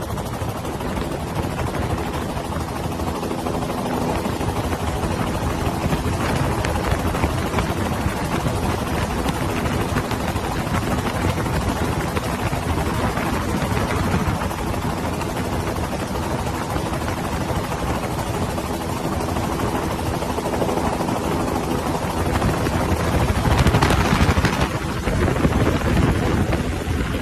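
Helicopter running steadily: a dense rotor and engine noise with a steady underlying hum, growing louder near the end.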